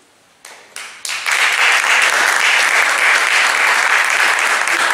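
Audience applauding. A couple of scattered claps come first, then full, steady applause from about a second in.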